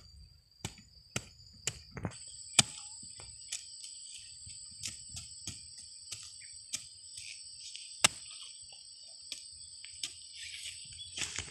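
A small hand hoe chopping and scraping into soil in repeated, irregular strokes, one sharper strike about two seconds in and a loud one about eight seconds in. A steady, high insect chirring runs underneath and grows stronger about two seconds in.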